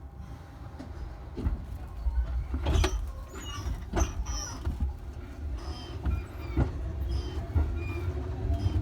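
Electric train getting under way: a low running rumble that grows louder, sharp clacks as the wheels pass rail joints or points, and a traction-motor whine starting to rise in pitch near the end.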